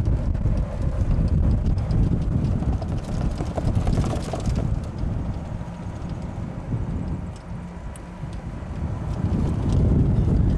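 Golf cart driving along a paved cart path, heard from on board: a low rumble with wind buffeting the microphone. The noise drops for a couple of seconds about seven seconds in, then picks up again.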